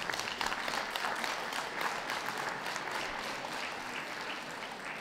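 Audience applauding: many hands clapping together in a dense, even clatter that slowly eases off toward the end.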